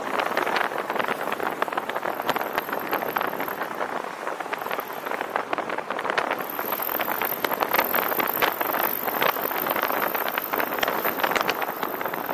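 Noise of a car driving on a city road, heard through a 360 camera's microphone with wind buffeting it in uneven gusts. A faint high-pitched whine comes and goes, steadiest over the second half.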